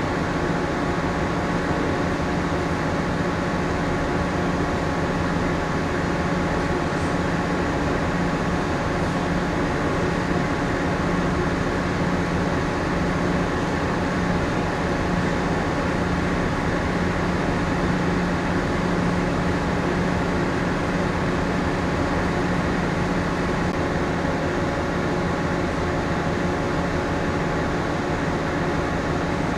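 Steady hum of a moored ship's onboard machinery and ventilation heard inside the vessel: an even drone carrying several steady tones, with no change throughout.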